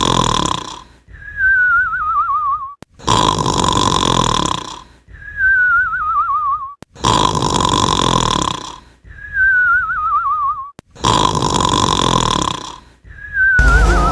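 Snoring sound-effect machine playing a cartoon snore on a loop. Each cycle is a rasping snore on the in-breath, then a falling, warbling whistle on the out-breath, repeating about every four seconds. Music cuts in at the very end.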